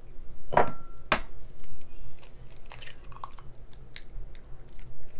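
An egg being cracked: two sharp knocks of the shell about half a second apart, then the shell crackling as it is pulled apart.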